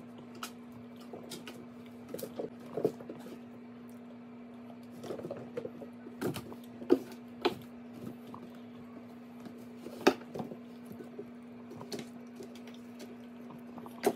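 Kittens playing on and in cardboard boxes: scattered light taps, scratches and knocks of paws and bodies against the cardboard and floor, with a few sharper knocks in the middle, over a steady low hum.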